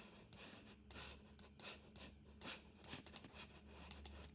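Faint, irregular clicking of a computer mouse and keyboard, several clicks a second, over a low steady hum.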